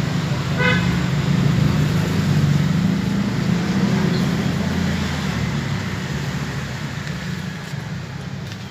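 An engine running with a steady low drone, loudest in the first half and slowly fading toward the end. A short higher-pitched call or toot sounds briefly near the start.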